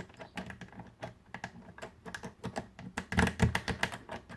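Lock pick scrubbing inside a Squire SAL/40 padlock: a fast run of irregular small metal clicks from the pick and pins, loudest around three seconds in.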